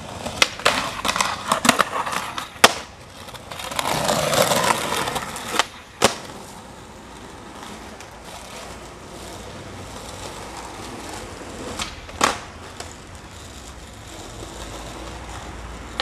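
Skateboard wheels rolling on pavement, with sharp clacks of the board hitting the ground. A cluster of taps in the first few seconds, a louder stretch of rolling about four to five seconds in, then single hard clacks about six seconds in and again near twelve seconds.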